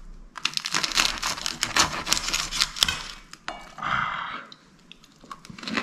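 A table knife sawing through a fried carp-roe patty on sourdough bread, crunching and scraping against a ceramic plate in quick crackling strokes for about three seconds. A short single noise follows about four seconds in, with a few more clicks near the end.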